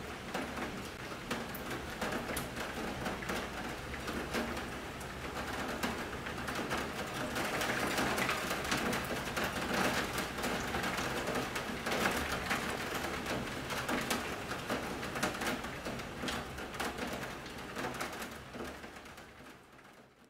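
Outdoor evening ambience under trees: a steady hiss dotted with many small clicks, fading out near the end.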